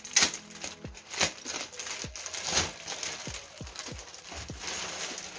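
Packaging rustling and crinkling as it is handled and opened, with three louder crackles in the first three seconds. Soft background music with a steady beat underneath.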